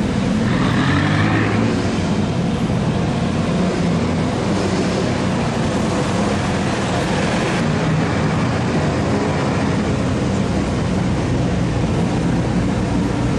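Supercar engines running and revving as several exotic sports cars drive slowly past one after another, with a short rise in revs in the first couple of seconds.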